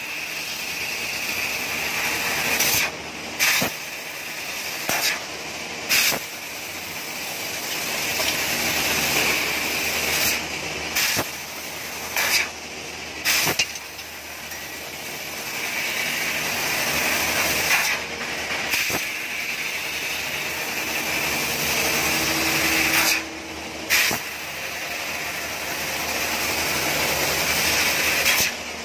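Fiber laser CNC cutting machine at work: a steady hiss of assist gas jetting from the cutting head, swelling slowly, broken every few seconds by short louder bursts and brief pauses between cuts.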